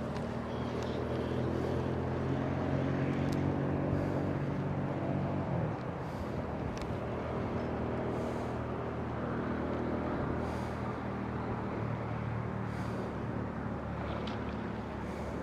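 A motor vehicle's engine running with a steady hum; about six seconds in its pitch drops and it grows a little quieter, then it runs on.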